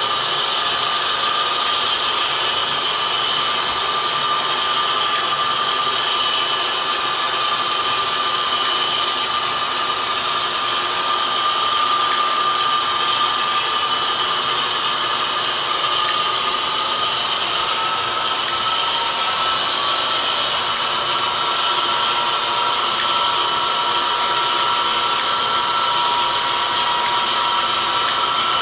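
HO scale double-stack intermodal well cars rolling past on the track: a steady rolling hiss of small metal wheels on rail, with a thin whine that shifts slightly in pitch about two-thirds of the way through.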